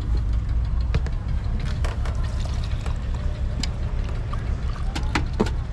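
An engine running steadily with a low drone, with scattered light clicks and a little pouring or trickling water over it.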